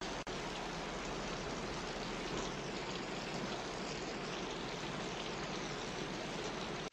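Steady rushing noise of water, like a stream or heavy rain, briefly cutting out just after the start.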